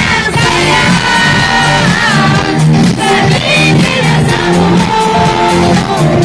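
Loud live pop music: a voice singing a wavering melody over a steady, pulsing beat.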